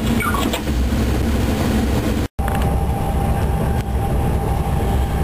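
Cab noise of a DXC-class diesel-electric locomotive under way: a steady low engine rumble with running noise from the wheels and rails, heard from inside the cab. About two seconds in the sound cuts out for an instant, and after that a steady thin whine runs along with the rumble.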